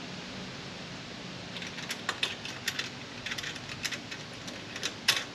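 V-band exhaust clamp being worked onto the pipe flanges: light metal clicks and clinks, scattered at first and coming more often from about a second and a half in, over a steady low hum.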